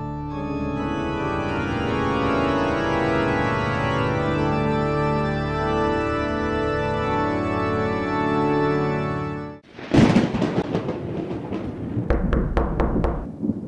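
Organ music with long held chords plays, then cuts off about nine and a half seconds in. A sudden loud crash follows, then crackling noise with sharp cracks and a low rumble.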